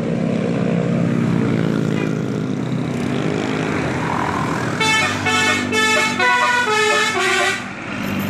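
A bus engine running, then about five seconds in a Basuri multi-tone 'telolet' bus horn plays a quick melody of several stepped notes for nearly three seconds before cutting off.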